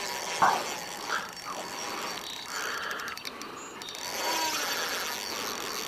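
Spinning fishing reel clicking and ratcheting while a hooked common carp is played on 8-pound line, with a sharp click about half a second in.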